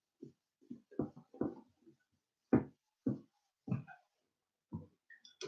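A whiteboard being wiped clean, a series of short, irregular rubbing strokes.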